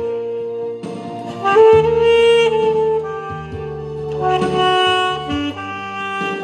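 Music: a saxophone playing a slow melody of long held notes over an instrumental accompaniment.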